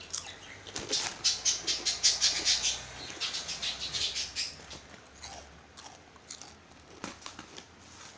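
A person eating something crunchy close to the microphone: a quick run of crisp crunches for the first few seconds, then quieter chewing with a few scattered crackles.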